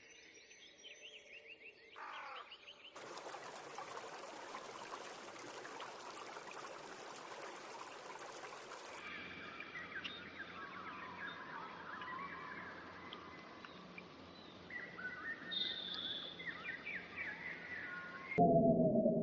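Wild birds singing and chirping in a run of short recordings spliced together, with quick rising and falling notes. From about three to nine seconds a steady hiss lies under the calls.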